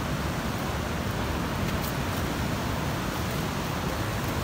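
Waterfall's rushing water: a steady, even noise with no breaks.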